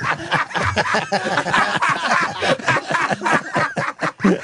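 A group of men laughing hard together, chuckles and snickers overlapping, right after a joke.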